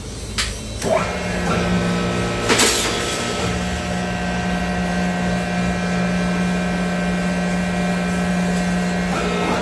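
Hydraulic press running while bending a steel leaf-spring leaf: after a couple of knocks, its pump motor starts about a second in and holds a steady hum. A short noisy burst comes about two and a half seconds in.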